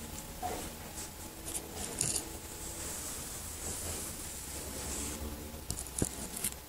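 A cat chewing and licking at food pieces on a tiled floor: faint scratchy crunching with a few sharp clicks, the sharpest about six seconds in, over a steady low hum.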